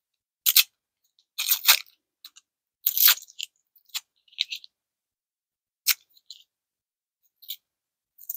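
Candy wrapper crinkling in short bursts as yogurt candies are unwrapped by hand. The loudest crackles come in the first three seconds, with fainter ones after.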